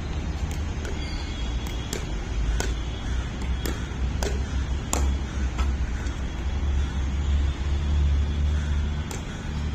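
Pickleball paddles striking a plastic ball in a fast-hands volley drill: a run of sharp pops, one or two a second, that pauses after about six seconds and resumes near the end, over a steady low rumble.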